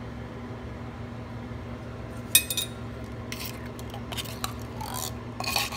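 A metal spoon clinking and scraping against the inside of an opened tin can of condensed cream of chicken soup as it is scooped out, with a sharp clink about two and a half seconds in and a few lighter ones after it.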